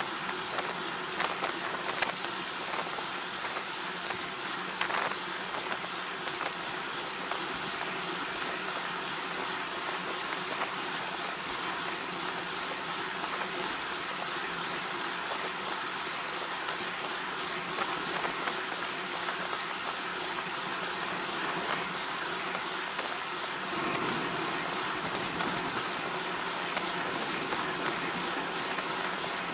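A vehicle under way, with steady road and wind noise and a faint engine hum, swelling slightly about three-quarters of the way through.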